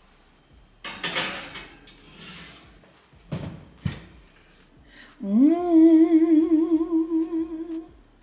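A glass baking dish is scraped out of the oven, followed by two sharp knocks, then a person hums one long note that slides up and wavers with vibrato, the loudest sound.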